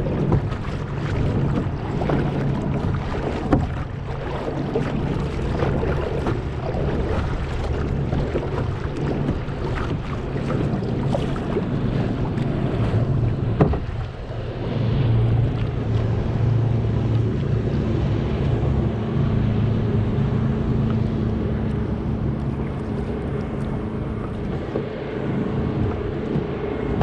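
Water slapping and splashing against a kayak's bow under a bow-mounted camera, with wind buffeting the microphone. A steady low hum runs underneath.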